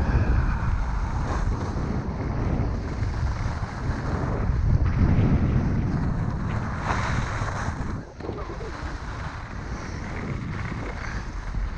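Wind buffeting the microphone of a skier's camera on a downhill run, a heavy rumbling rush mixed with the hiss of skis on packed snow. The hiss swells about seven seconds in and drops away for a moment around eight seconds.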